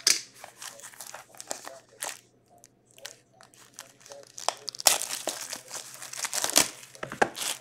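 Clear plastic shrink wrap being torn and crinkled off a small sealed hockey card box, with light handling taps on the box. Scattered crackles at first, then dense, loud crinkling from about five seconds in.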